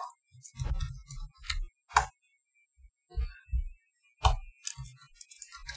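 Typing on a computer keyboard: about a dozen irregular key clicks, each with a soft thump, as a file name is entered.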